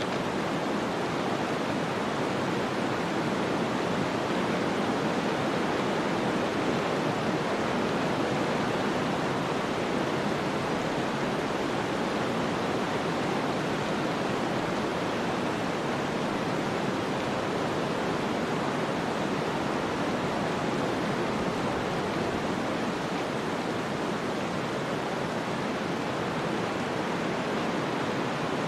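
Snowstorm ambience: a steady, even rush of wind noise with no separate events.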